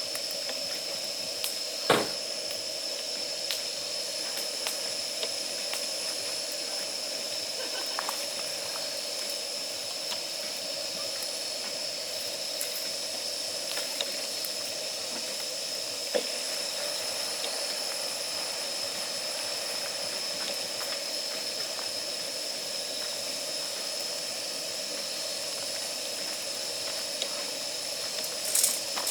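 Separate-canister gas burner hissing steadily as its flame is held on damp firewood to force it alight. A sharp crack about two seconds in, a few faint ticks, and a cluster of louder crackles near the end.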